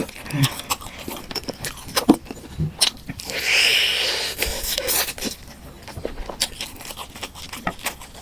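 Close-miked eating of fish roe and bone marrow: many small wet clicks and smacks of chewing, with a louder drawn-out hiss about a second long a little after three seconds in.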